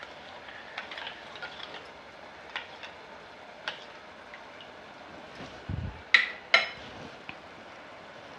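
Metal spoon stirring and scraping in a metal vessel, mixing spice masala with water, with light clicks throughout and two sharp ringing clinks against the rim about six seconds in.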